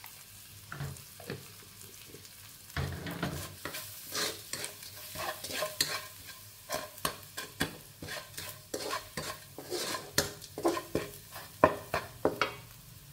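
A spatula scraping and clacking against a nonstick wok in quick, irregular strokes, stirring garlic and chilli satay paste as it fries in oil with a sizzle underneath. The stirring starts about three seconds in.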